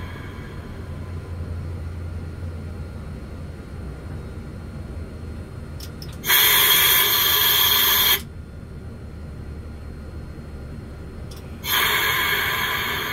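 Compressed air exhausting from the EF63 electric locomotive's brake valve as the handle is worked. A click, then about two seconds of loud hissing that cuts off sharply; after a pause, another click and a second hiss that slowly fades. A low steady hum runs underneath.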